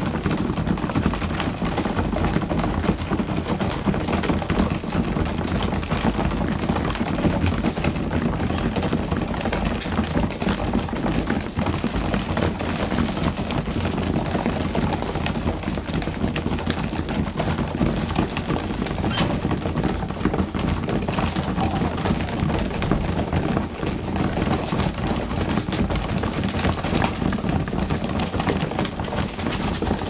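A flock of young racing pigeons pecking a grain mix off a concrete floor: a dense, continuous run of beak taps on seed and concrete.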